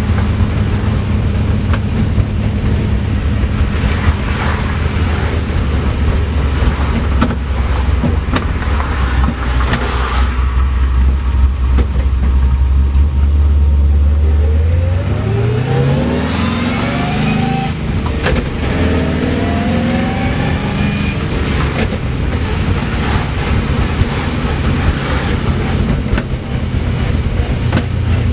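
Car engine and drivetrain heard from inside the cabin while driving: a steady low drone for the first half, then the pitch climbs over several seconds as the engine revs up, with a rising whine, before settling back to a steady drone.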